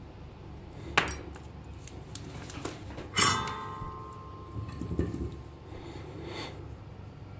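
Metal tools handled on a workbench: a sharp click about a second in, then a bright metallic clink that rings on for about a second as the soldering iron is drawn out of its coiled-spring stand, with a few lighter knocks after.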